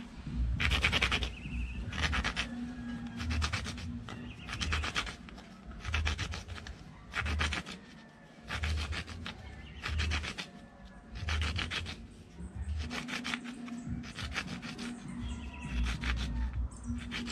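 A small PVC disc cut from pipe being rubbed back and forth on rough concrete, gritty scraping strokes about one a second with short pauses between them. He is grinding the disc round so it will fit inside the PVC barrel.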